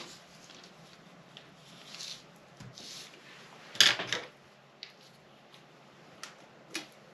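Light handling sounds of pattern drafting on a table: soft scraping, a few small clicks, and one sharper knock about four seconds in.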